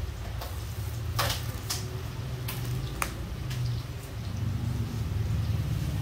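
Handling of a blood pressure cuff and its rubber tubing: a handful of short scuffing sounds in the first half, over a steady low hum.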